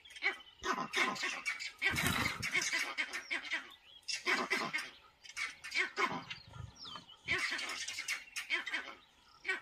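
Porcupines rattling their raised quills in repeated bursts of dry clattering, their defensive warning against a leopard.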